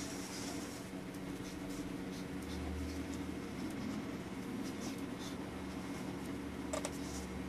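Marker tip scratching across paper in short, irregular strokes as outlines are inked, over a faint steady hum.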